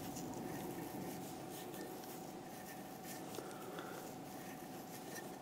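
Faint rubbing and scratching of tying thread and frizzle chenille being wrapped around a hook held in a fly-tying vise, over a faint steady tone.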